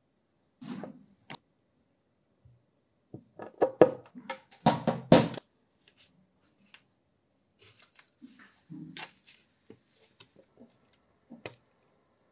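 Hard plastic pieces being handled and set down on a wooden tabletop: scattered clicks and knocks, with a loud clatter about four to five seconds in.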